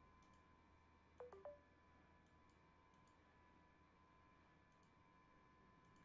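Near silence: faint room tone with a steady electrical hum, a few faint mouse clicks, and a brief cluster of three short tones at different pitches about a second in.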